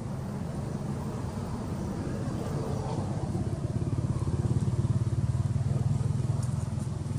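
A small engine running with a low, pulsing drone that grows louder about four seconds in and eases toward the end, as a motor vehicle passing by would.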